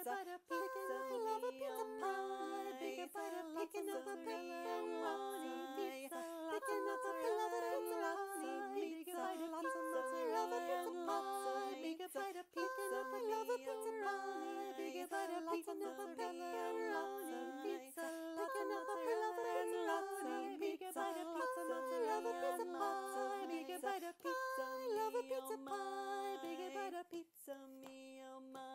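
A three-part round sung a cappella by one woman's voice recorded three times over, the three parts overlapping in canon. It ends on a held chord near the end.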